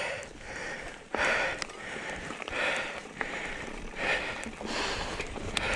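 A cyclist breathing hard, one noisy breath roughly every second, over a low rumble of wind and tyres on the trail.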